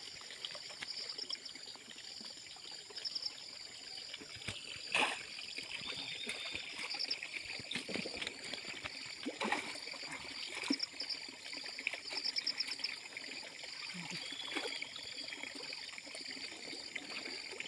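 Muddy shallow water sloshing and trickling as a man wades and gropes for fish by hand, with a few sharper splashes. A high, rapidly pulsed chirping repeats in the background throughout.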